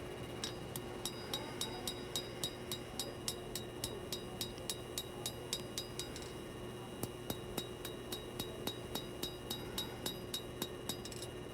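Hammer striking a 1095 steel knife blade on an anvil while forging in the edge bevels: a steady run of ringing metal-on-metal blows, about three a second, with a short pause about six seconds in.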